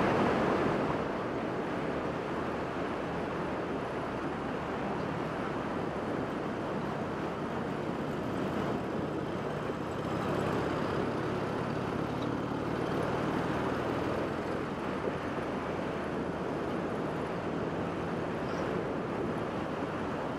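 Harley-Davidson Iron 883 Sportster's 883 cc air-cooled V-twin running at a steady cruise, mixed with steady wind and road rush, heard through a lavalier mic inside the rider's helmet.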